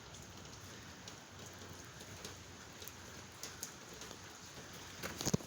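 Steady rain falling: an even hiss with scattered drops ticking, and a short cluster of louder taps near the end.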